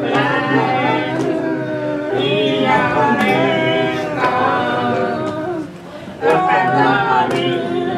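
Several voices singing together, a worship song, with a brief drop in loudness a little under six seconds in.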